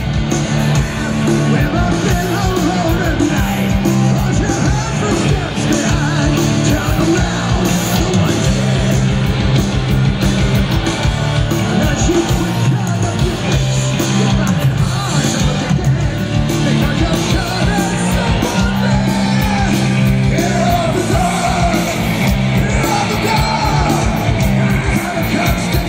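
Heavy metal band playing live at full volume, heard from within the crowd: electric guitars, bass and drums, with voices singing and yelling over the music.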